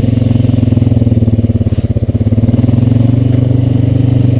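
Honda Rancher 420 ATV's single-cylinder four-stroke engine running at low speed with a steady pulsing beat, easing off briefly about two seconds in.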